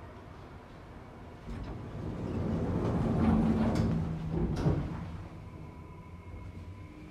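Sliding doors of a 1992 Stricker hydraulic elevator closing: a rising rumble as the panels run shut, ending in a sharp knock about four and a half seconds in as they meet.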